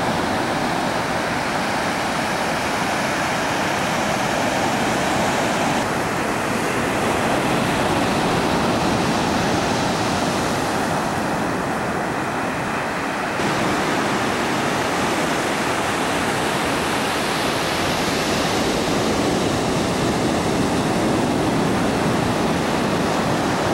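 Steady, even rush of ocean surf on a beach, its tone shifting abruptly twice.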